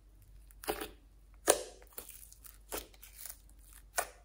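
Thick white slime being pressed and pulled out of its plastic tub by fingers: sticky, wet crackles and pops at irregular moments, the loudest about one and a half seconds in.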